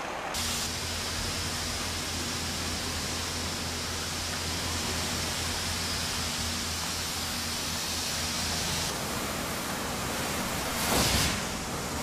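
Steady rushing of running water, with a low hum underneath. The sound changes about nine seconds in, and a brief louder swell comes near the end.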